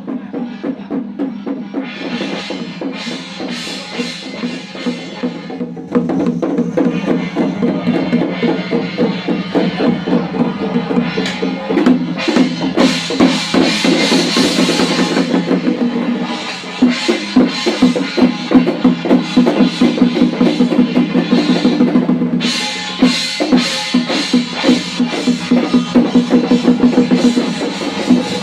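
Ceremonial percussion music: rapid drum strokes over steady ringing tones, getting louder about six seconds in, with short breaks before picking up again.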